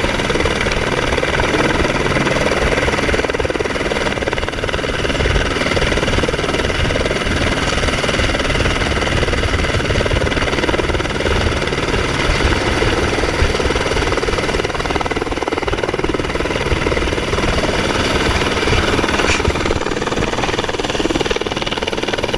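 Light helicopter hovering close by and settling onto its skids: a steady, loud rapid beat of the main rotor blades with a high whine from the engine over it.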